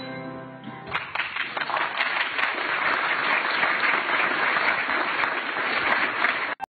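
The last notes of a piano fading away, then an audience applauding from about a second in; the applause cuts off suddenly near the end.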